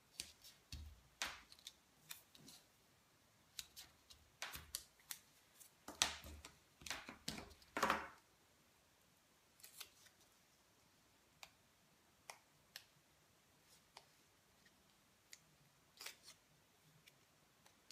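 Faint paper-craft handling sounds: a run of short snips, clicks and rustles as a small paper square and double-sided tape are worked by hand, busy for the first half, then only a few scattered ticks.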